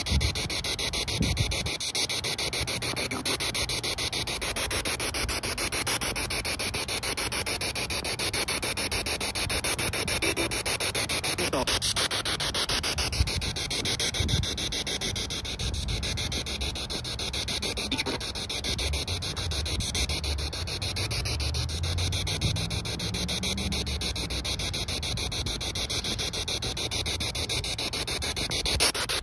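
Steady, rough rushing noise on a handheld camera's microphone, carried by someone walking.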